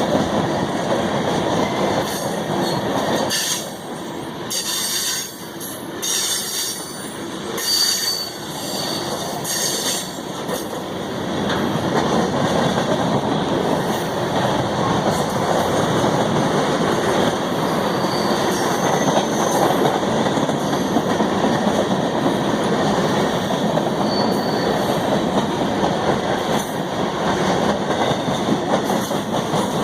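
CSX train's cars rolling past steadily, wheels on rail, with high wheel squeals, most of them in the first third.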